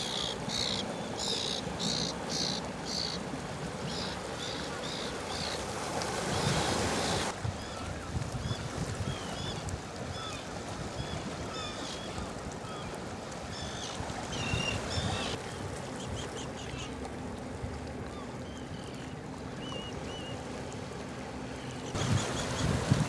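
Sea water washing and splashing around rocks, swelling louder twice. Over it, terns give short, sharp high calls: a quick run of about half a dozen at the start, another short run soon after, then scattered single calls.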